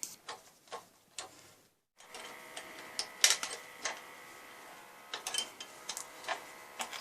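Scattered light metallic clicks and ticks as the moped's front brake cable fitting is unscrewed by hand, with a brief dropout about two seconds in.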